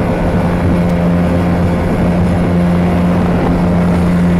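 Speedboat engine running at a steady pitch, heard from on board, a constant drone over a rushing hiss.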